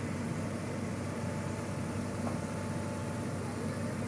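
Komatsu hydraulic excavator's diesel engine running steadily at close range, an even low hum.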